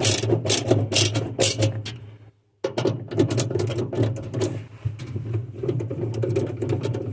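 Screws being driven with a power screwdriver: a steady motor hum with rapid, irregular clicking, broken by a short total dropout about two seconds in.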